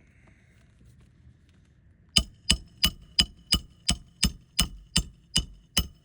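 Hammer driving a roofing nail through an asphalt shingle into the roof decking. After about two seconds of quiet it strikes about three times a second, eleven or so blows, each with a short metallic ring.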